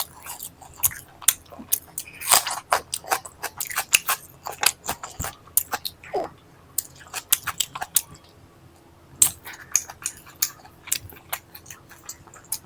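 Close-miked wet chewing and biting of bread and curried chicken, an irregular run of moist mouth clicks and smacks with a brief lull about seven seconds in.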